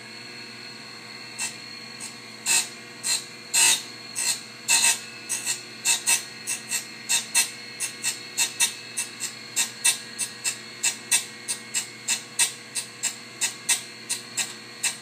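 Manual surface grinder's wheel spinning with a steady whine, grinding a metal shim in short bursts as the table carries the work back and forth under the wheel. The strokes are sparse and uneven at first, then settle into a steady rhythm of about two passes a second.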